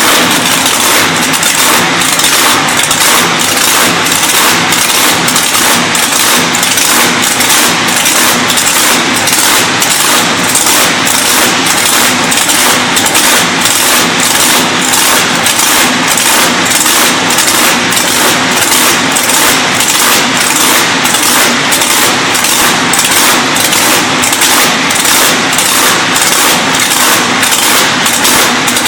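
1400-horsepower speed boat engine running loudly and steadily just after start-up, with a regular pulse about one and a half times a second.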